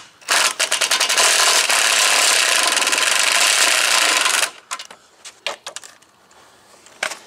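Cordless impact driver running a screw in for about four seconds, a fast rattling stream of impacts that stops abruptly. A few light clicks and knocks of handling follow.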